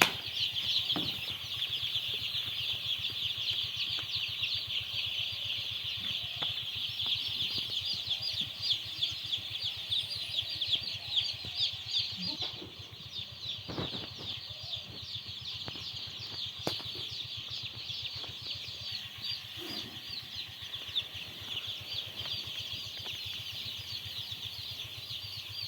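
A large flock of day-old broiler chicks peeping continuously, a dense chorus of high overlapping chirps, with a few knocks partway through.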